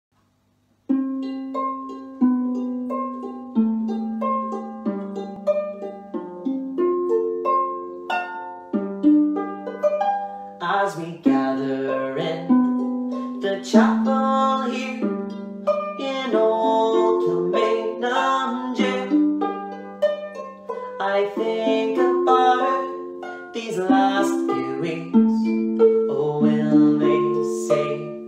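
22-string Irish harp played solo: plucked notes and chords ringing over lower bass notes, starting about a second in and growing fuller about ten seconds in.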